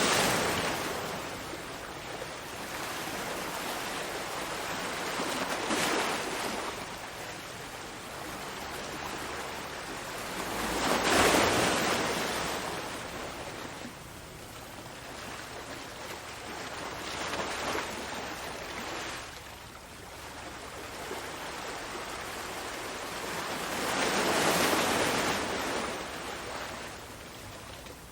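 Ocean waves, a continuous hiss of surf that swells and fades as each wave comes in, every five or six seconds. The biggest surges come at the very start, about eleven seconds in, and about twenty-four seconds in.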